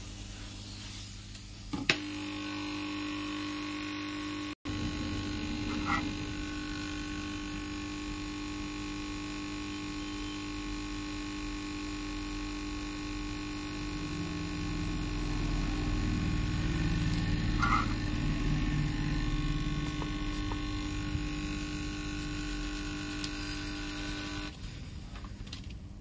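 A steady machine hum made of several fixed tones starts with a click about two seconds in and cuts off abruptly near the end. It breaks off for an instant about four and a half seconds in.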